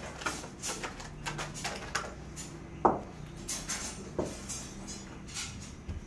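Stones and broken masonry clinking and knocking together as rubble is handled and cleared by hand, in irregular knocks with a sharper one about three seconds in.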